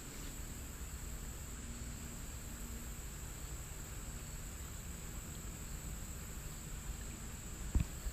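Steady high-pitched insect chirring with a low rumble underneath, and two short knocks near the end.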